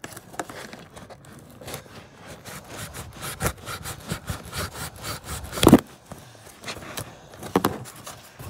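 Packing tape being peeled and ripped off a cardboard shipping box, with irregular scraping, crackling and rustling of the cardboard. The loudest rip comes about six seconds in, with another a couple of seconds later.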